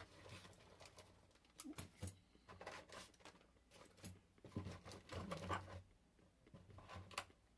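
Faint handling noise of small parts: scattered light clicks, taps and rustles, a few sharper clicks near the middle and end.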